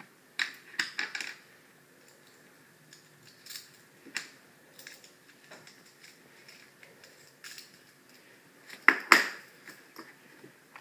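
Small metal tools and screws handled on a wooden tabletop: scattered light clicks and clinks with gaps between, the loudest a close pair about nine seconds in.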